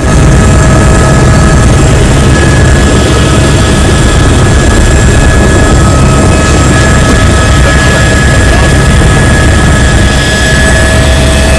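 Helicopter engine and rotor running, heard loud from inside the cabin: a heavy low drone with a steady high whine over it.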